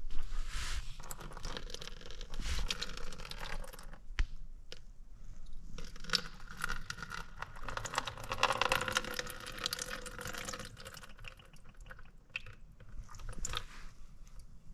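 Leftover water draining out of the ports of a removed boiler plate heat exchanger and splashing into a plastic bowl as the plate is tilted, with small clicks and knocks from handling the metal plate.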